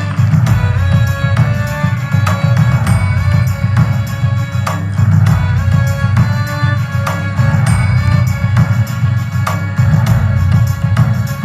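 Background music: sustained low notes with a melody above and a steady percussion beat.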